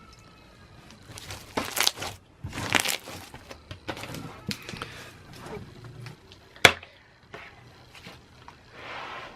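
Clear slime being squished and stretched by hand, giving irregular sticky crackles and squelches, with one sharp pop a little over halfway through.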